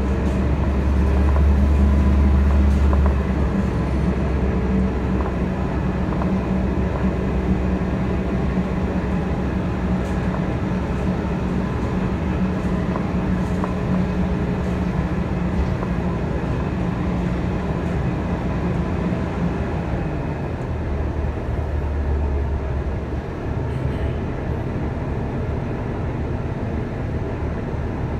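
City transit bus heard from inside the cabin while driving: a steady low engine and drivetrain hum over road noise. The engine note drops about two-thirds of the way through as the bus slows to a stop.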